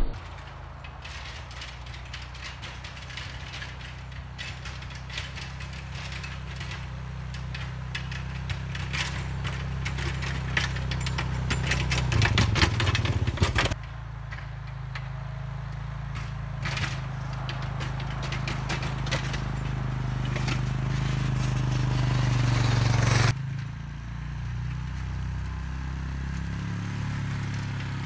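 Honda Foreman 450 ATV's single-cylinder engine running steadily under load while it pushes a snow plow blade, with scraping and crackling of snow against the blade and tires. The engine grows louder in two stretches, and each breaks off suddenly.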